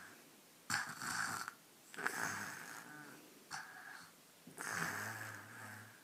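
Sleeping young child snoring through an open mouth: four noisy breaths about a second and a half apart, the last one with a low-pitched snore in it near the end.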